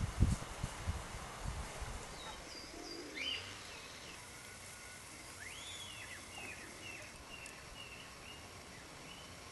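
A small bird singing a string of short chirps and whistled notes, some rising and falling. Under it is a steady outdoor hush, with low gusts of wind on the microphone in the first two seconds.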